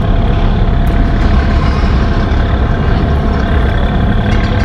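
Heavy engines running steadily, a loud unbroken low rumble with a steady hum over it: the noise of nearby construction works.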